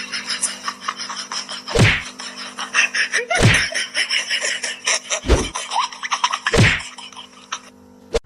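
Four heavy thumps a second or two apart over a steady hum and a dense run of light taps and clicks.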